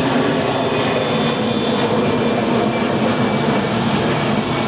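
Jet engines of an easyJet Airbus airliner running steadily as it taxis on the ground: a continuous rush with a faint steady high whine.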